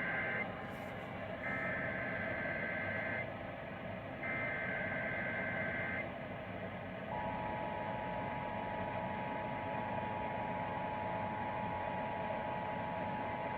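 Emergency Alert System Required Monthly Test on AM radio with static. It begins with the SAME header's data tones: a burst ending about half a second in, then two more bursts, each just under two seconds, with short gaps between. About seven seconds in, the steady two-tone EAS attention signal starts and holds.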